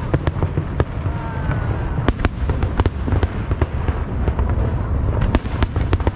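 Fireworks display: a rapid, irregular run of sharp bangs and crackles over a continuous low booming rumble.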